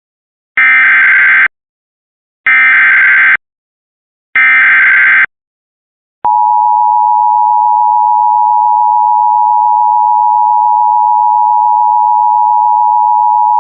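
Emergency Alert System SAME header: three identical one-second bursts of digital data warble, about two seconds apart. About six seconds in, the steady two-tone EAS attention signal begins and holds, announcing a new National Weather Service severe thunderstorm warning.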